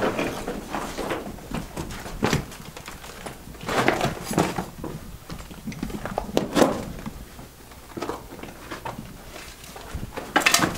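Scattered knocks and scuffs at irregular intervals, people moving over rocky ground and handling gear inside a mine tunnel.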